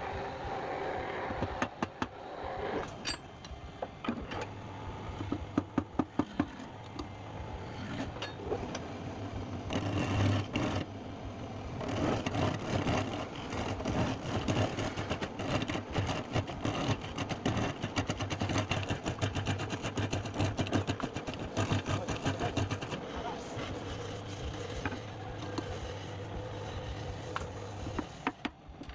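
Wood lathe running with a turning tool cutting the spinning workpiece: a steady motor hum under dense, rapid ticking and scraping from the cut.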